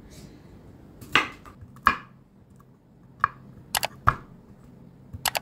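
Kitchen knife chopping walnut kernels on a wooden cutting board: irregular sharp chops, a few spaced strikes and then quicker ones after the middle and near the end.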